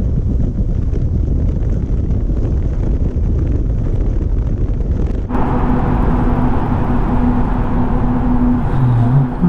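Motorcycle riding through a long road tunnel, with a continuous low rumble of engine and wind and the tunnel's ventilation fans running. A little past halfway the sound changes suddenly, turning brighter and louder with a steady hum.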